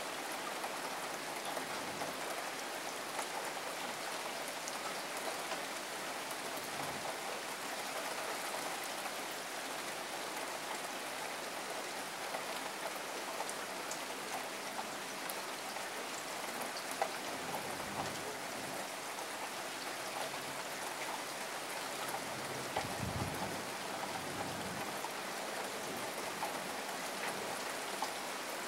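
Steady rain falling, an even hiss of many small drops pattering.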